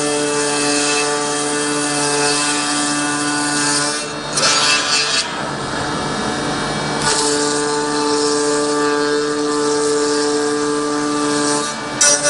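CNC milling machine's spindle running and cutting: a steady whine of several held tones over a rough cutting hiss. About four seconds in the steady tones drop out for a few seconds under a short noisier stretch, then come back; a brief sharp noise sounds near the end.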